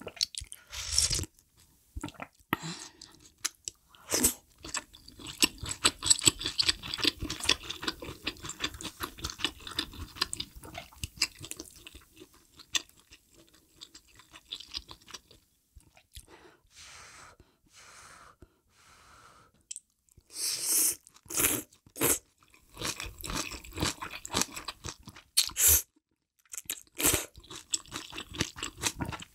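Close-miked chewing and crunching of spicy mala hot pot food (malatang and malaxiangguo with noodles and cilantro). It is dense, wet and crackly at first and quieter midway, with several loud crunching bites near the end.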